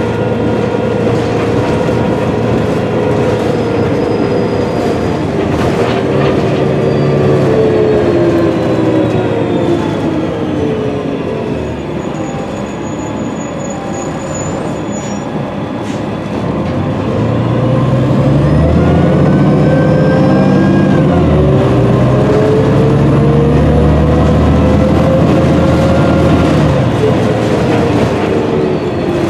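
Heard from inside the cabin of a 2006 New Flyer D40LFR bus: the Cummins ISM diesel engine and Voith automatic transmission running with a whine that falls in pitch as the bus slows. After a quieter stretch near the middle, the bus pulls away louder, its whine rising, dropping back as it shifts and rising again.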